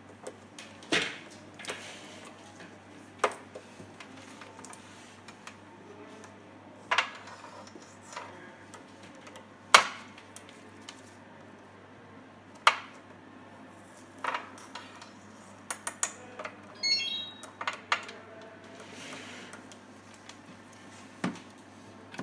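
Multimeter test-probe tips tapping and clicking against LED contacts on a metal-backed LED board as each LED is tested, a dozen or so scattered sharp ticks. Midway through the latter half comes a brief run of high chirps.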